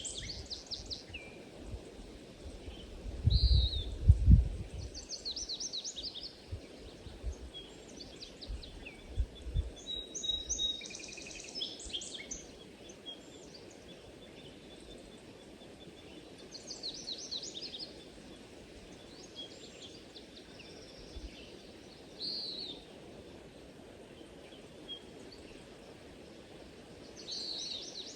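Small birds chirping and trilling in short high phrases every few seconds over a steady low background hum. A few low rumbles come in the first ten seconds, the loudest about four seconds in.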